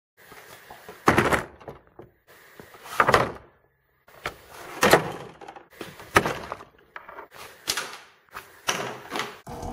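A series of about eight knocks and thuds, spaced a second or so apart, like gear being moved about in a metal-sided garage. Near the end a steady electric motor hum starts up: the garage door opener.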